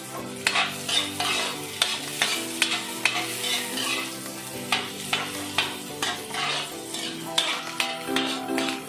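A metal ladle stirring and scraping sliced onion and garlic around a large aluminium wok, about two scrapes a second, over the sizzle of the aromatics frying in hot oil.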